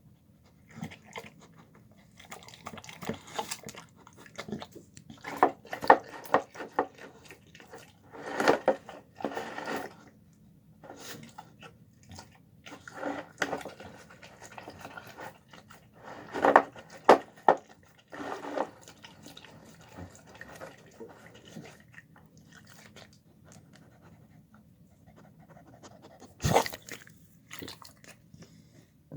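A dog eating, chewing and crunching its food in irregular bursts of sharp bites, with quieter pauses between them.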